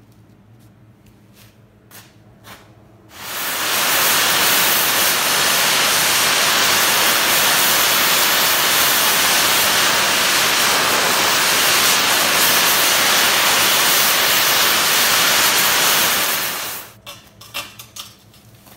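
MIG welding arc on mild steel tube: a loud, steady hissing, frying noise that starts about three seconds in, holds for about fourteen seconds and cuts off suddenly as the trigger is released. A few light clicks come before and after it.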